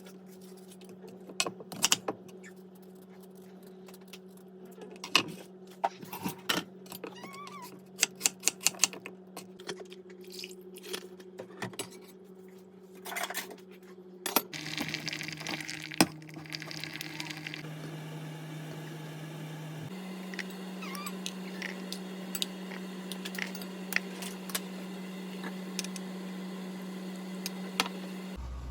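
Repeated light clinks and taps of a spoon against a dish as a baby is fed, many in the first half and sparser later, over a steady low background hum.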